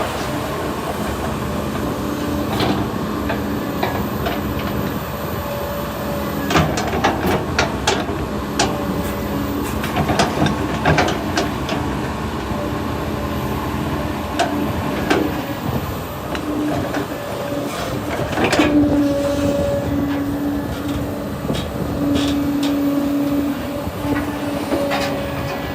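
Excavator working: steady diesel engine hum with a hydraulic whine that comes and goes, and many sharp metallic clanks and knocks.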